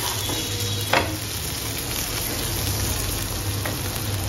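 Butter sizzling under grilled sandwiches toasting on a non-stick tawa. A single knock about a second in as a wooden spatula turns a sandwich over on the pan.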